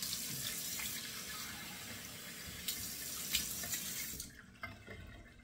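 Cold water running from a bathroom sink tap, with a few splashes as water is cupped onto a face; the running water stops about four seconds in, leaving faint drips.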